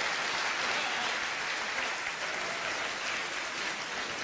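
Audience applauding, a steady clatter of many hands clapping that eases slightly near the end.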